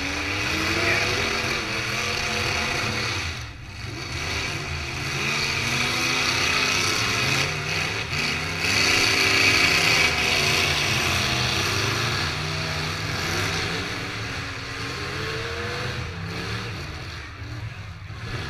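Demolition derby car engines running and revving, their pitch rising and falling repeatedly.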